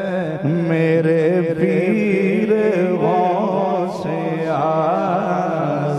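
A man's voice chanting a Sufi devotional refrain in long, held melodic lines, the pitch wavering on each sustained note.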